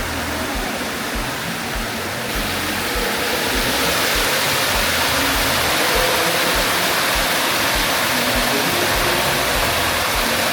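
Rushing water of an underground stream flowing through a cave, a steady noise that grows louder about three seconds in.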